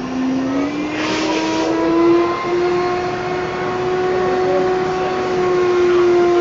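Apollo 1050 VR HVLP turbine sprayer switched on, its motor whine rising in pitch as the turbine spins up over about two seconds, then running steady. About a second in there is a short burst of air hiss.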